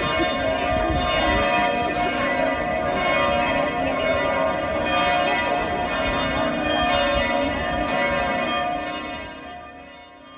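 Church bells pealing together, a dense wash of overlapping ringing tones that fades out over the last two seconds.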